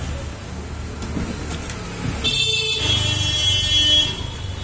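Road traffic rumbling, with a vehicle horn sounding for about two seconds from about two seconds in.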